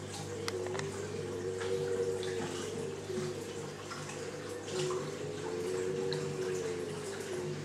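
Reef aquarium water trickling and splashing, with small drips over a steady low hum from the tank's pumps.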